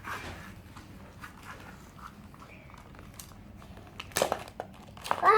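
Packaging being opened by hand: soft crinkling and small clicks of plastic and wrapping, with a louder rustle about four seconds in.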